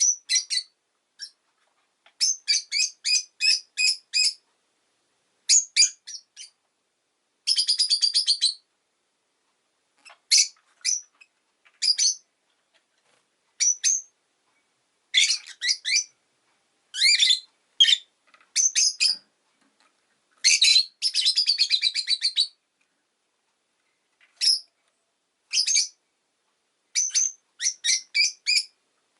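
Rosy-faced lovebird chirping: short, sharp, high chirps in quick runs of several at a time, with brief pauses between the runs.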